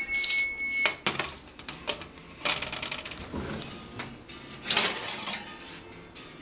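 A high electronic beep for about a second at the start, then metal baking sheets clanking and scraping against the oven racks several times as a tray of cookie dough goes into the oven and a tray of baked cookies comes out.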